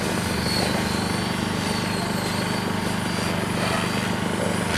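Electric RC helicopter in flight: a steady rotor buzz with a thin high whine that wavers up and down in pitch.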